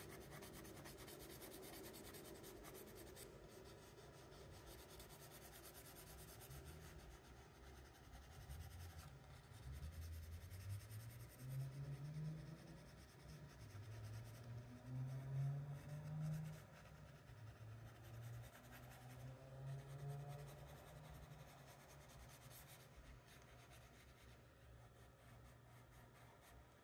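Faint scratching of a charcoal pencil across sketchbook paper in short back-and-forth shading strokes. From about 7 to 21 seconds in, a low hum that steps up and down in pitch sounds underneath and is the loudest thing heard.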